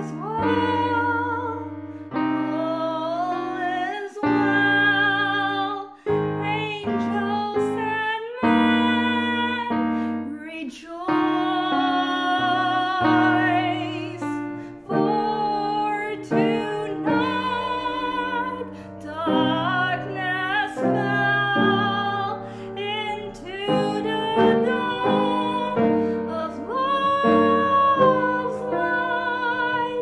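A woman singing solo with piano accompaniment, her held notes carrying vibrato.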